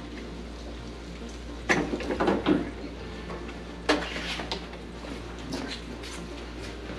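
A quick run of plastic clicks and snaps, then one sharp snap about two seconds later and a few lighter knocks. These are the pop clips of a 2020 Toyota 4Runner TRD Pro's plastic front bumper cover letting go as the cover is pulled free.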